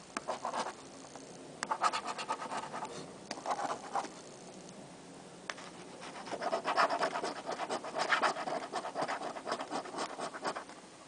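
A coin scratching the latex coating off a paper scratch-off lottery ticket, in a few short bouts and then a longer, louder stretch from about six seconds in.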